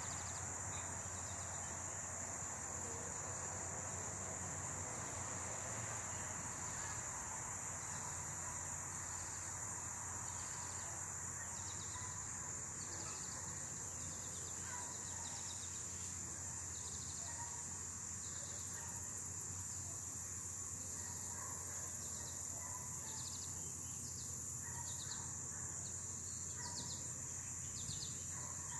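Steady, high-pitched insect chorus, with a short chirp repeating about once a second from the middle onward.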